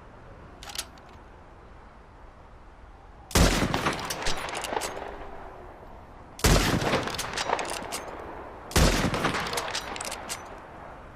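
Springfield rifle fired three times, a few seconds apart, each shot followed by a long echo that fades over about two seconds. A faint click comes just before the first shot.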